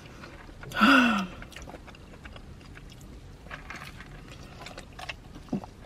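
A woman's short voiced sound with a falling pitch about a second in, then a quiet stretch with a few faint clicks and a brief small vocal blip near the end.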